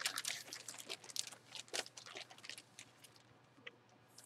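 Plastic wrap crinkling and crackling as it is handled, busiest in the first two seconds, then a few scattered crackles with a near-quiet stretch near the end.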